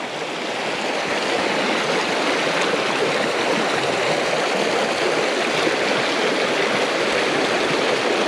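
Rain-swollen creek rushing steadily, growing louder over the first second or so.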